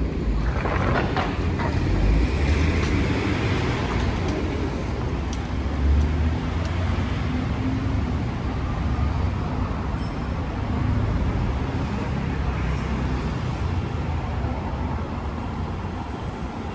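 Street traffic: a steady rumble of passing cars and road noise.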